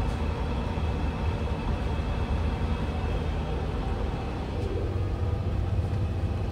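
Steady low rumble and hum of a powered-up, parked Airbus A350's systems heard in the cockpit, with no distinct events.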